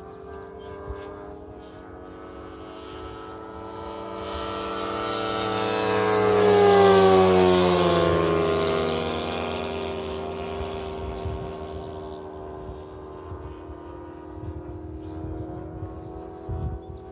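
Radio-controlled model warbird's engine and propeller at high power during a flyby. It grows louder to a peak about seven seconds in, the pitch drops as it passes, and it fades again.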